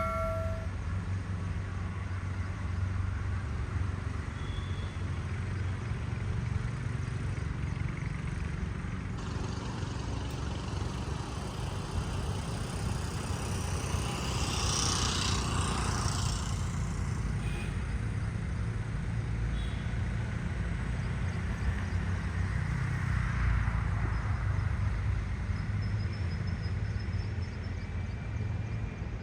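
Steady low rumble of road traffic, with one vehicle passing by about halfway through.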